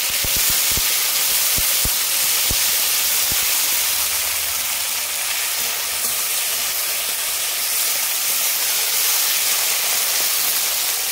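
Chopped tomatoes sizzling in hot oil in a pan, a steady loud hiss, with a few faint low knocks in the first three seconds.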